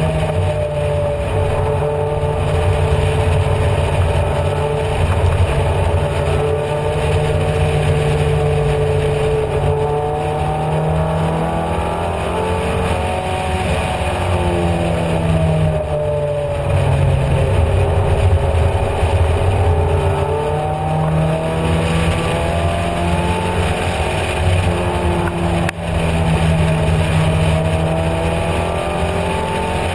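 Onboard sound of an open-cockpit race car's engine running hard at speed, with wind rush. The engine note holds high, then drops and climbs again a few times as the driver lifts and shifts, with one brief sharp dip near the end.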